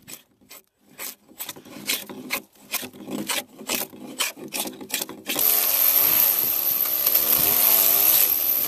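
Drawknife shaving the outside of a Douglas fir log in a quick series of short scraping strokes. About five seconds in, a gasoline chainsaw cuts in, running loud with its engine pitch rising and falling as it works into the wood.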